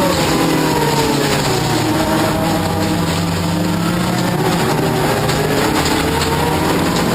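Toyota Corolla offroad race car's engine running hard under changing throttle: its pitch falls for about two seconds, climbs again, then dips and rises once more near the end.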